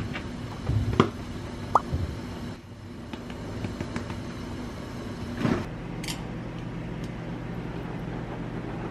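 A few sharp clicks and knocks of kitchen containers and utensils being handled, over a steady low hum that shifts lower about halfway through.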